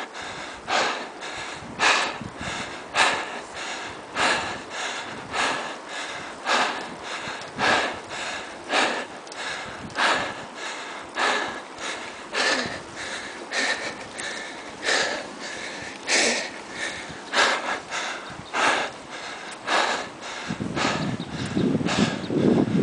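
A cyclist's hard, rhythmic breathing from the effort of pedalling up a steep mountain climb, about one loud breath a second. A low, steady rumble comes in near the end.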